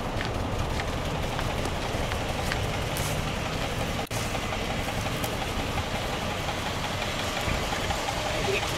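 1964 Chevrolet C-10 pickup's engine idling steadily. The sound cuts out for an instant about four seconds in.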